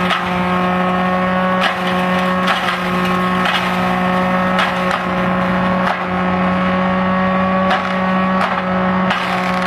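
Tractor-driven crusher-shredder running at speed, a steady hum from the spinning cutter and tractor engine, with sharp cracks at irregular intervals, about once a second, as coconut waste fed in is struck and chopped by the blades.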